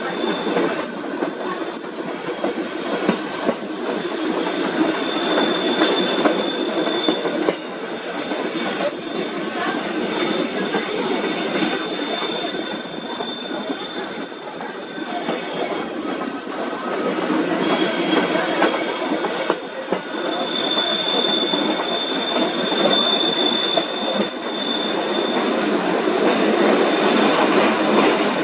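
Petit train de La Mure, a metre-gauge tourist railway, running along the track with a continuous rolling rumble. A high, steady wheel squeal swells twice, about five seconds in and again in the second half.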